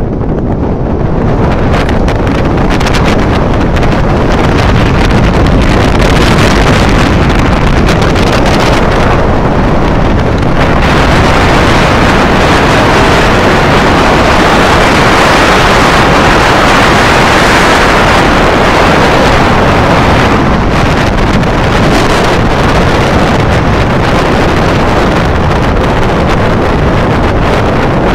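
Wind buffeting the microphone of a phone filming from a moving car, over the car's road and engine noise. The rush grows louder around the middle.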